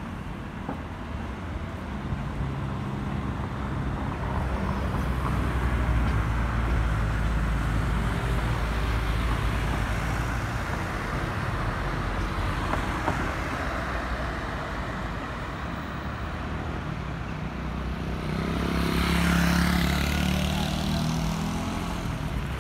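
Road traffic: cars and vans passing with a steady low rumble, one vehicle passing close about three-quarters of the way through.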